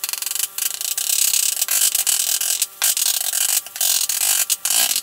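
Kitchen knife chopping boiled eggs on a plastic cutting board: fast, repeated blade strikes on the board in runs, broken by short pauses.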